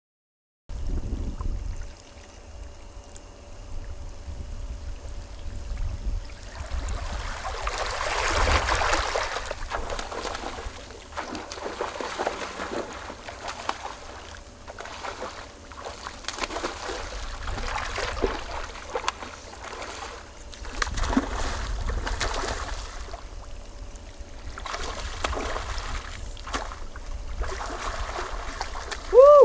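Shallow sea water sloshing and lapping around a wading fly angler, with scattered splashes, over a steady low rumble. A brief tonal sound comes right at the end.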